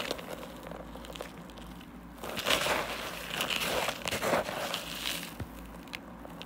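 A hand raking through and scooping up a bowl of mothballs and loose mothball crystals: gritty crunching and rustling in a few bursts from about two seconds in, with small clicks.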